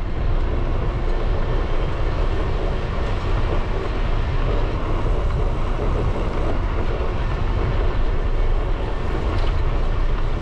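Wind buffeting the microphone while cycling: a steady, rumbling noise, heaviest in the low end.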